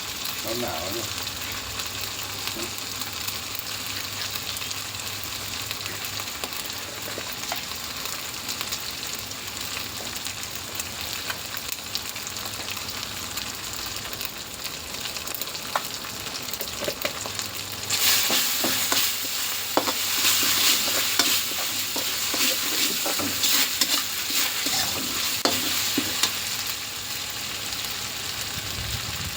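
Food sizzling as it fries in a pan while being stirred with a utensil. The sizzle grows louder about two-thirds of the way in, with frequent scraping and tapping strokes of the stirring.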